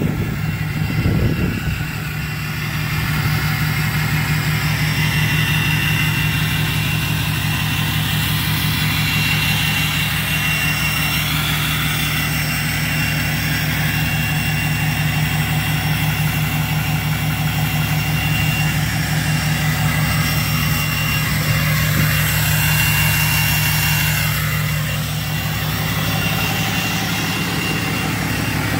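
A 2010 Ram pickup's engine idling steadily, with a thin high whine that comes and goes over it.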